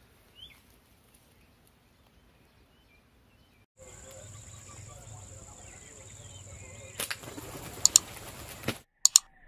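Faint outdoor background with one short bird chirp, then a steady thin high whine with light bird twittering. Several sharp snaps come in the last two and a half seconds, the loudest a close pair about a second in from the first and another close pair just before the end.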